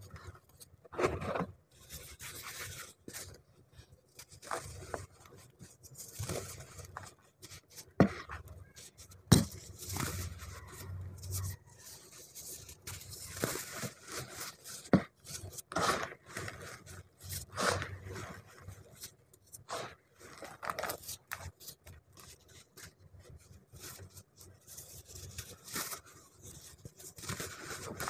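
Hands squeezing, rubbing and crumbling dry blue powder in a plastic tub: an uneven crunchy scraping with a few sharp clicks.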